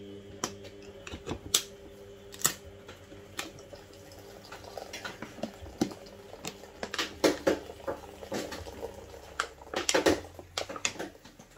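Scattered light clicks and taps of a knife working at a tin of Guinness, with quicker bursts of clicking about seven and ten seconds in, over a steady low hum.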